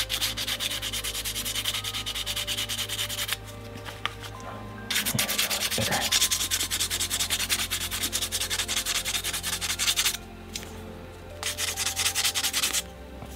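Sandpaper rubbed by hand over a carved knife handle in quick back-and-forth strokes, rounding off its hard edges. The sanding comes in three bouts, pausing briefly about three seconds in and again about ten seconds in.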